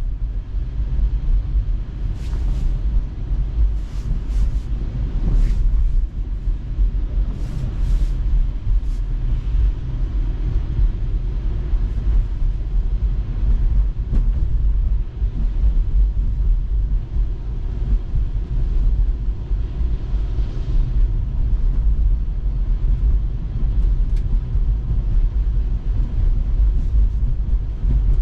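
Steady low rumble of road and tyre noise heard from inside a moving Tesla's cabin on a snowy road, with a few brief high ticks in the first third.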